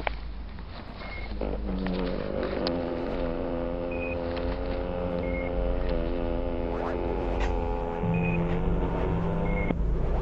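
Experimental electronic drone music: a low, steady rumble with a sustained pitched drone that comes in about a second and a half in and holds. Pairs of short high beeps, one higher then one lower, recur about every four seconds, with a few scattered clicks.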